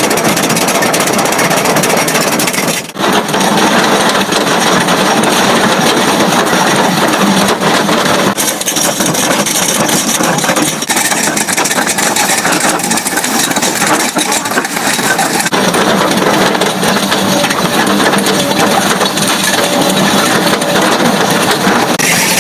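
Hydraulic drum cutter cutting into weathered rock: a continuous loud grinding rattle of the cutting picks on stone, over a running engine, with a brief break about three seconds in.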